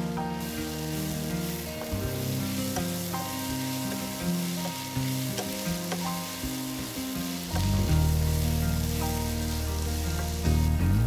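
Food frying in a hot pan: a steady sizzle that starts a moment in, with a few light clicks of a utensil. Instrumental background music plays under it.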